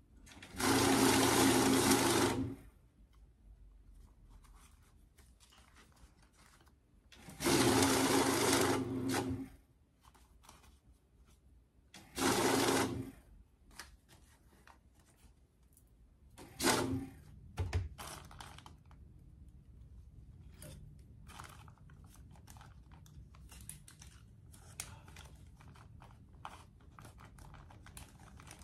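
Electric banknote counter whirring in short runs as stacks of bills are fed through it: two runs of about two seconds, a shorter one, and a brief one about halfway in. In between and afterwards, paper bills rustle and flick faintly as they are counted by hand.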